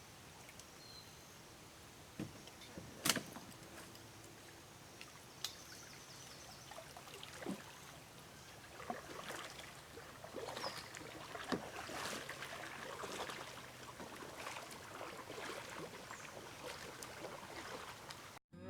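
Quiet sounds of a canoe on the water: scattered small knocks and water splashes, with one sharper knock about three seconds in.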